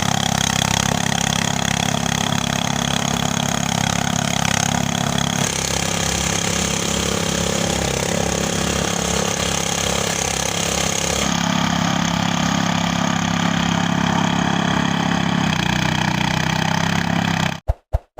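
Engine of a motorised rice threshing machine running steadily, heard in three spliced stretches that change abruptly, then cutting off near the end.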